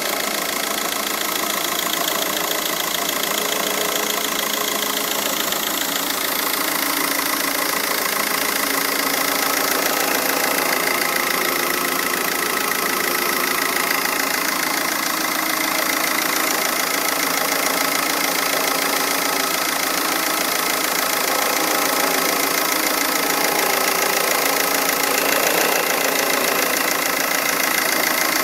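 Volkswagen 2.0-litre BRM TDI diesel engine running steadily, with an unexplained odd noise from near a big black pipe in the engine bay. A steady high tone sits over the engine's note.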